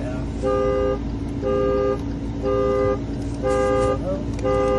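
Car horn honking in a steady pulse, about one half-second blast every second, a two-note horn sounding as the Dodge Dart's anti-theft alarm.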